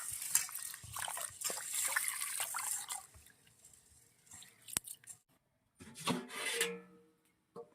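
Water being poured out and splashing for about three seconds, then stopping, followed by a few scattered knocks and clatters.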